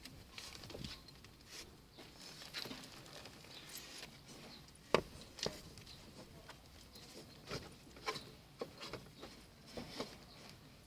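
Handling noises as a car's seat belt is pulled out and threaded around a high-back booster car seat: scattered clicks and knocks of plastic and webbing with soft rubbing between them, the sharpest click about five seconds in.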